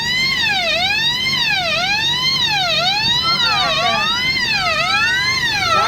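Electronic fire alarm siren wailing, its pitch sweeping up and down about once a second, set off by a smoke detector under test.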